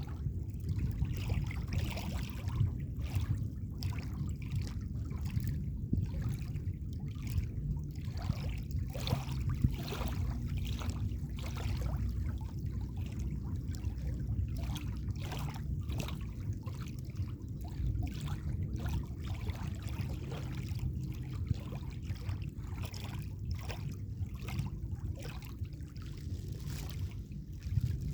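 Small sea waves lapping and splashing at the water's edge: irregular, overlapping splashes over a steady low rumble.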